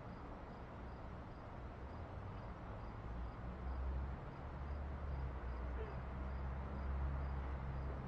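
Low, steady engine hum of a nearby vehicle, swelling about three seconds in, over faint regular high chirping of insects.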